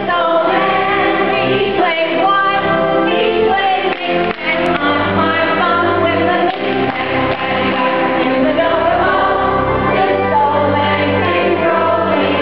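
A roomful of people, adults and children together, singing a song in unison.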